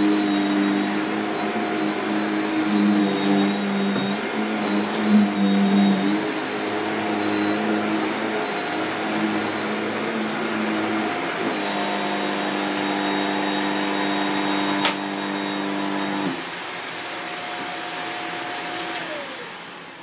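Shark Powered Lift Away NV681UKT bagless vacuum running on carpet, a steady motor hum with hiss. There is a sharp click about 15 s in, the sound drops in level a second later, and the motor's note falls away near the end as it runs down.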